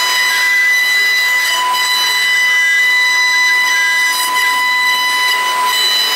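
Multi-spindle CNC wood carving router running, its spindles cutting wooden statues: a steady high-pitched whine over a hiss of cutting.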